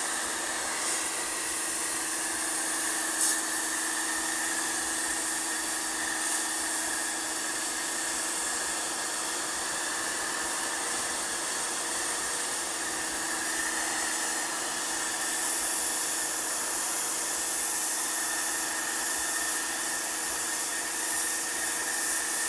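Lutian LT501-1800A electric pressure washer running: a steady hiss from the high-pressure jet striking a brick wall and stripping old paint, over the steady hum of its 1800 W motor and pump.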